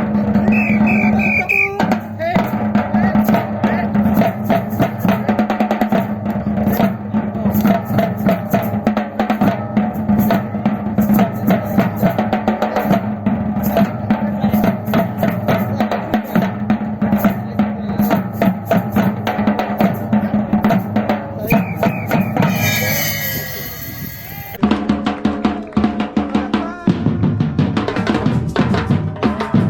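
Batucada drum ensemble playing a dense, driving groove of bass drums, snares and other hand percussion. A few short high notes sound in the first couple of seconds. About three-quarters through, the playing thins out briefly, then comes back in full.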